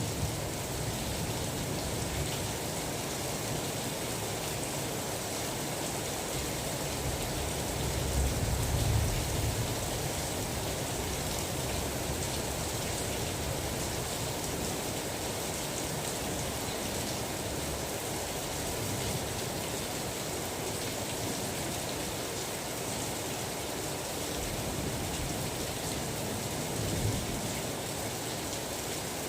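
Steady rain falling in an even hiss, with a few soft low rumbles swelling briefly about a second in, around eight to nine seconds in, and near the end.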